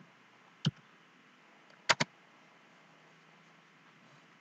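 Isolated sharp clicks from a computer keyboard and mouse: one click under a second in, then a quick double click about two seconds in, over a faint steady hiss.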